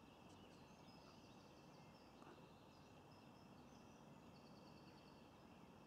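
Near silence: faint distant birdsong, short chirping phrases now and then, over a steady low background hiss.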